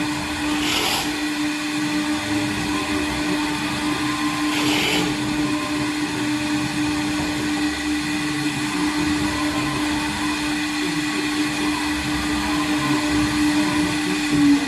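TechPro 1212 CNC router running a carving job in wood: the spindle holds a steady high whine over the rough noise of the bit cutting. Two brief hisses come about one second and five seconds in.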